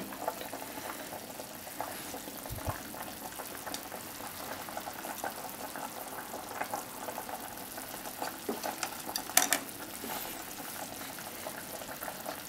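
Broth simmering with a steady bubbling crackle in a pot of egg-stuffed fried tofu, with small clicks as chopsticks move the pieces. One sharper tap about nine and a half seconds in.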